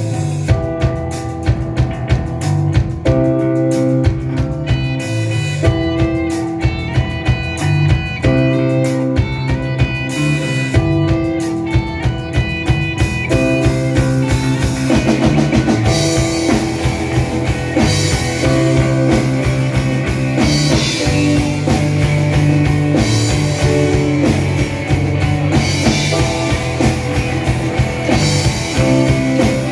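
Live rock band playing: electric guitars, bass guitar and drum kit over a steady beat, with strong bass notes. About halfway through, the drumming brings in more cymbal.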